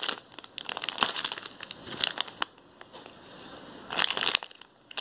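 Plastic packaging crinkling as it is handled, in several short irregular spells with a quieter stretch in the middle.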